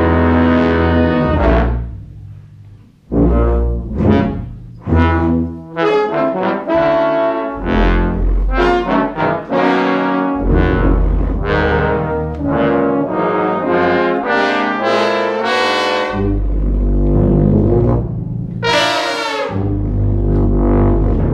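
A live brass-and-saxophone band of trumpets, trombones, saxophones and tuba plays in full chords. It breaks off briefly about two seconds in, comes back with a string of short punchy notes, and moves into longer held chords.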